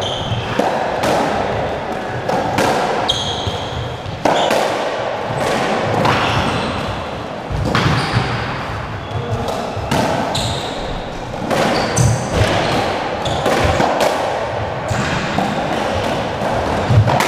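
Squash rally: the ball struck by rackets and smacking off the court walls again and again at an irregular pace, with brief squeaks of shoes on the wooden floor.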